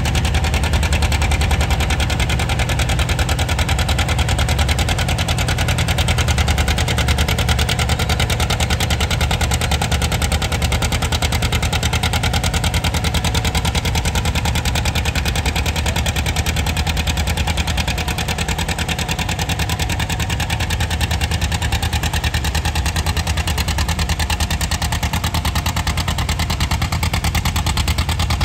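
A farm stock pulling tractor's diesel engine runs loud and steady, with a fast, even firing rattle.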